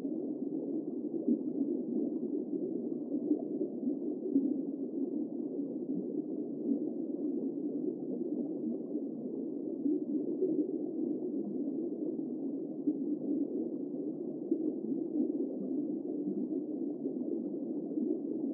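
Steady, muffled underwater noise from an underwater camera, dull and low with no high sounds at all.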